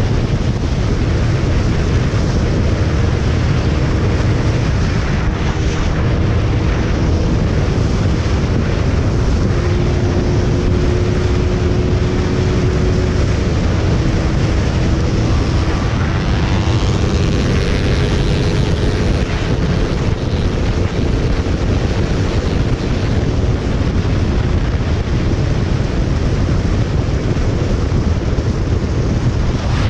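Motorcycle at highway speed: heavy wind buffeting on the bike-mounted camera's microphone over a steady engine note that shifts slightly in pitch a few times. A higher whine joins in for a few seconds about halfway.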